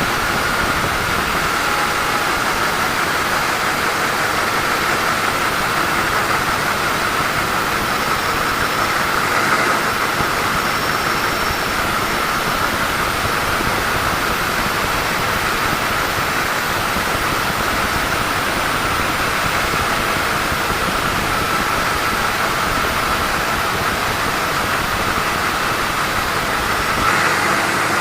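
A sawmill saw running steadily as it cuts through a teak log: an even, loud mechanical noise with a steady whine, swelling briefly near the end.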